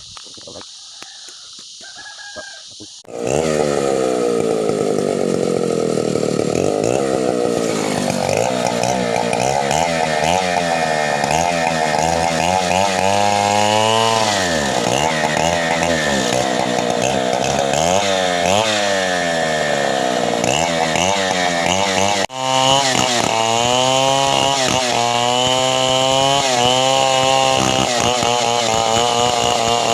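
Two-stroke chainsaw engine, coming in loud about three seconds in and running at high revs. Its pitch repeatedly sags and climbs back as it is loaded and revved, with one brief drop in level about two-thirds of the way through.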